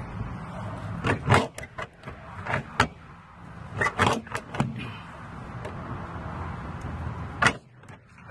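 Clusters of sharp clicks and knocks from hands working on a brake booster and the parts around it under the hood: several about a second in, more around three and four seconds in, and one strong knock near the end, over a steady low hum.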